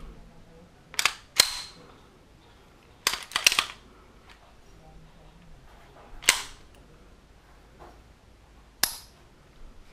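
Semi-automatic pistol being worked by hand: a series of sharp metallic clacks as the slide is racked back and snapped forward, some coming in pairs about half a second apart. A single sharp click near the end fits the hammer dropping on a dry-fire trigger pull, the function check after cleaning and reassembly.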